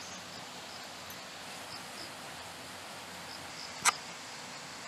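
Quiet rural outdoor background with faint, short, high insect chirps repeating every half second or so, and a single sharp click about four seconds in.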